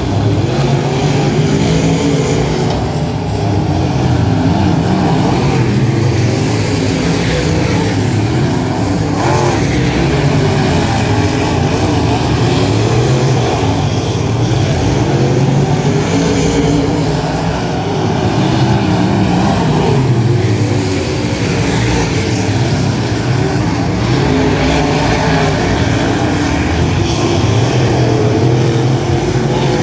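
Dirt modified race cars' V8 engines running hard around a dirt oval, their pitch rising and falling again and again as they lift and accelerate through the turns.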